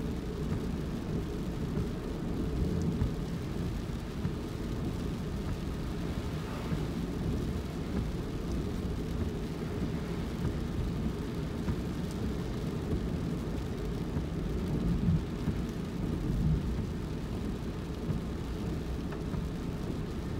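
A car driving, with a steady low rumble of road and engine noise.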